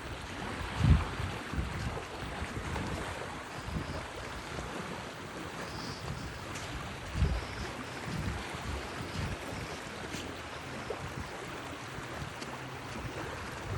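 Rushing water of a rain-swollen creek, a steady hiss, with a few low thumps, the loudest about a second in and another about seven seconds in.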